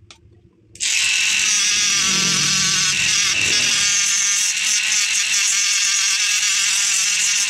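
A handheld corded rotary tool with an abrasive grinding stone starts up about a second in and runs with a steady high-pitched whine as it grinds the paint off a motorcycle brake caliper.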